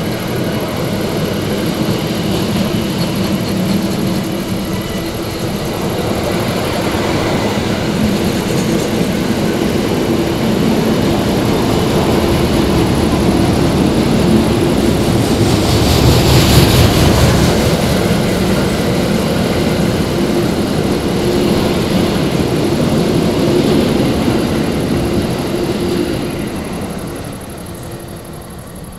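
Freight train of double-deck car-carrier wagons rolling past: a steady rumble and rattle of wheels on rail that swells briefly about halfway through, then fades near the end as the last wagon goes by.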